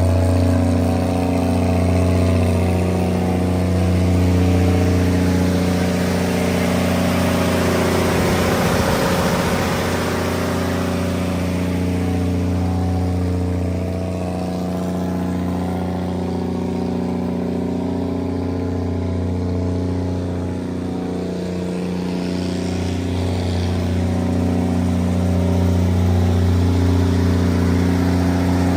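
Cummins 230 DFAB diesel generator set's LTA10-G1 turbocharged inline-six diesel engine running at a steady speed, a constant low-pitched drone with slow swells in loudness.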